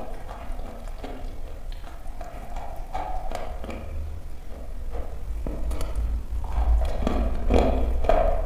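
Close-miked biting and chewing of a dry chunk of natural chalk: irregular sharp crunches and snaps, growing louder and more frequent about five seconds in.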